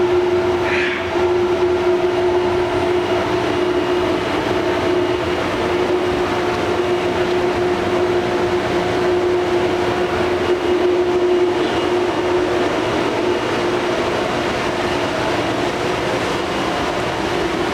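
Miyano TSV35 CNC drill-tap machining center running: a steady mechanical hum with a constant mid-pitched tone over it.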